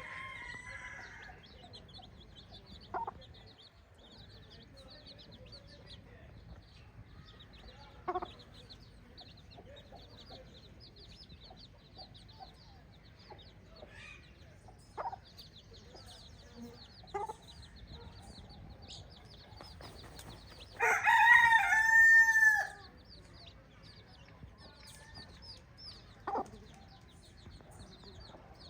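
Chickens clucking now and then, and a rooster crowing once, loudly, about three-quarters of the way through. A steady high chirping runs underneath.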